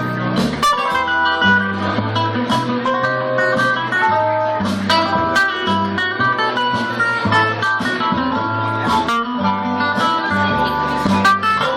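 Live band playing an instrumental break in a blues-flavoured song: guitar playing a melody over a stepping bass line and a steady beat.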